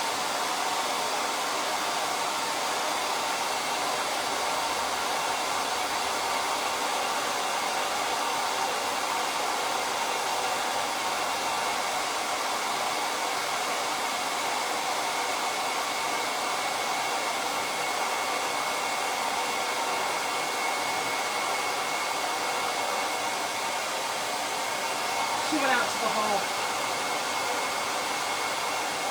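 Handheld hair dryer running steadily, blowing to dry craft paste, with a steady high whine over its rush of air. A brief wavering sound breaks in near the end.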